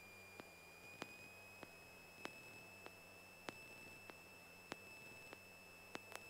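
Near silence on the aircraft's intercom audio feed: a faint, steady, high-pitched electrical whine that rises slightly about a second in, with soft clicks about one and a half times a second. The engine itself is not heard.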